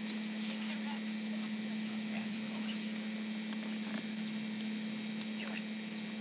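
A steady low hum throughout, with faint, scattered soft ticks and scuffs over it.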